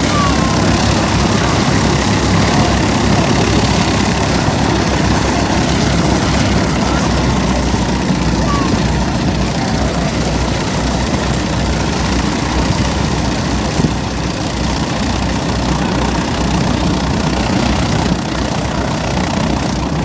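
Engines of a small propeller airplane with two propellers mounted back to back, idling steadily on the ground.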